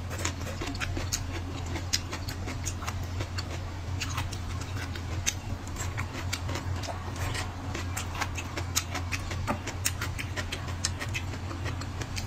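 Close-miked eating sounds: wet chewing, slurping and smacking of lips as green vegetable stalks are sucked in and chewed, with many irregular sharp mouth clicks over a steady low hum.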